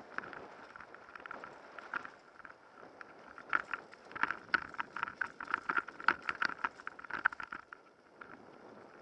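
Mountain bike riding over rough forest singletrack: irregular rattles, clicks and knocks from the bike over the bumps, thickest in the middle and easing near the end, over a steady rush of tyre and wind noise.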